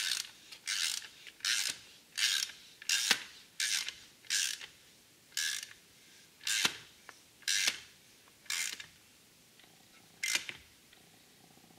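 Hand ratchet clicking in about a dozen short runs, one on each back-swing, as a 10 mm hex bit on an extension tightens the cone onto the jet pump.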